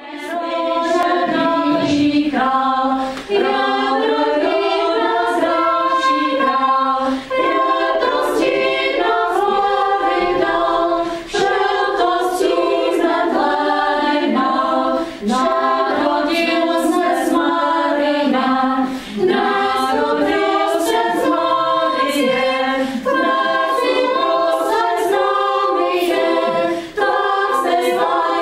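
Women's choir singing in several parts, in phrases of about four seconds with a short break between each.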